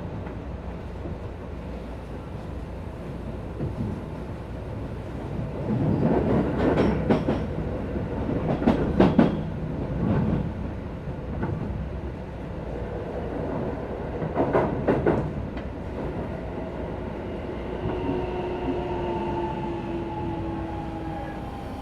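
Onboard running sound of a Keisei 3050 series motor car with a Toyo IGBT-VVVF inverter: a steady wheel and track rumble, broken three times by clusters of clickety-clack as the bogies cross rail joints. In the last few seconds the inverter and traction-motor whine comes in and slowly falls in pitch as the train slows.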